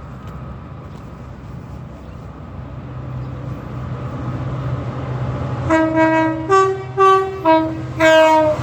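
A train approaching, its low running rumble growing louder, then from just after halfway five short blasts on a two-tone train horn, alternating between the low and high notes.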